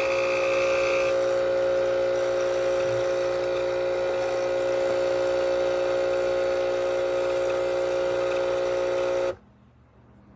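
ChefWave Káva capsule espresso machine's pump running as it brews a shot, a steady hum with a strong held tone, cutting off abruptly about nine seconds in.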